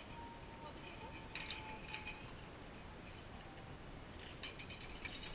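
Metal clinks and clicks of a zipline trolley and carabiners being hooked onto the cable: a few short, sharp clinks, spaced out, with a pair about a second and a half and two seconds in and more near the end.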